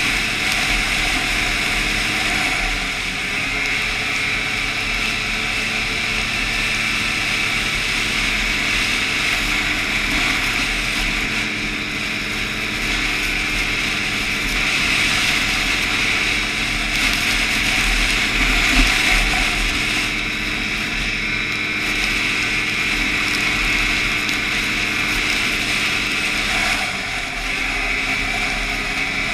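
Snowmobile engine running steadily under way, with a strong high whine and a rush of noise over it; its pitch shifts a little about three seconds in and again near the end.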